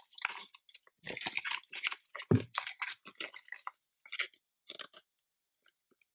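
Paper and packaging being handled: irregular rustling and crinkling, with one sharper knock about two seconds in, dying away near the end.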